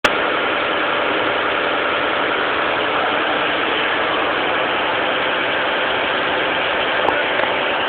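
A motor running steadily with an even mechanical drone, and a faint click about seven seconds in.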